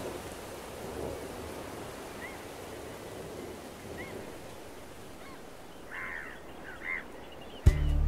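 Steady wash of sea water with short bird calls now and then, the loudest two about six and seven seconds in. Music starts abruptly just before the end.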